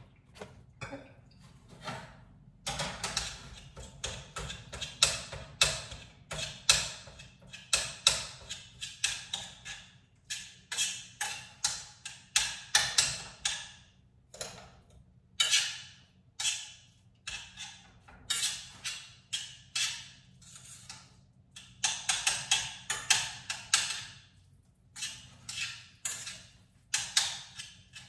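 Kitchen clatter: many irregular knocks, clicks and taps, in clusters with short pauses, as items and utensils are handled and set down.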